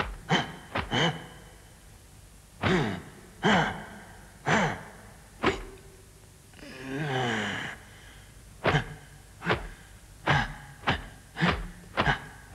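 Rapid swishing whooshes of kung fu hand strikes, each a quick sweep falling in pitch: a burst of a few, then about one a second, then a fast run of six near the end. About halfway through comes one drawn-out vocal cry that wavers in pitch.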